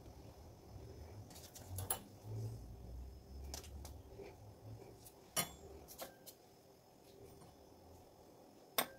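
Metal fork clinking and tapping on the work surface as its tines press the edges of a folded pastry: a handful of scattered sharp clicks, the loudest about five and a half seconds in and just before the end.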